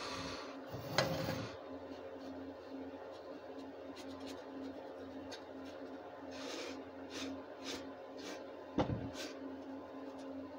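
Foam paintbrush dabbing and rubbing wet stain onto the wooden birdhouse, soft scraping strokes with two sharper knocks, about a second in and near the end, over a steady low hum.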